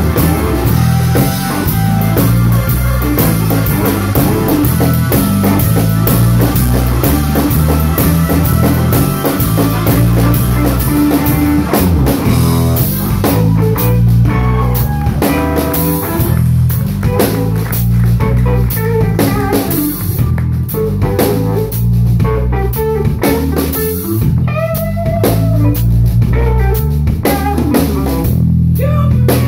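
Live electric blues band playing an instrumental passage: drum kit, electric bass guitar and a Roland stage piano, with a lead line bending in pitch coming in about halfway through.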